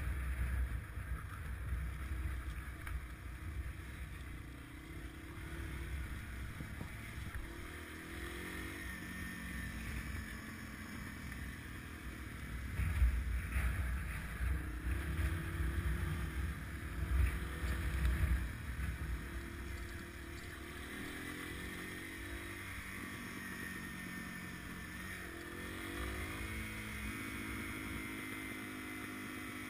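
Dual-sport motorcycle engine running under way on a dirt trail, heard from the bike itself, its pitch climbing and settling several times with throttle and gear changes. Low wind rumble on the microphone grows heavier partway through.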